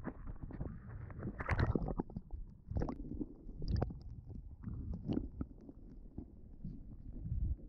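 Muffled water sloshing and gurgling against a waterproof camera housing as it goes under the surface. The sound comes in uneven low swells, with a few sharp clicks and knocks.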